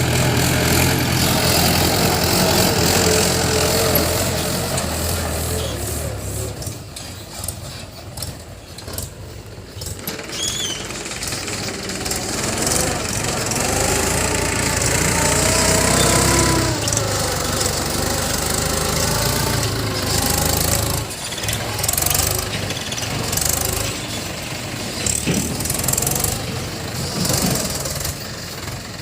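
Diesel engines of a JCB 3DX backhoe loader and a Mahindra tractor running while the loader works, the engine note dropping after about six seconds and then revving up and down.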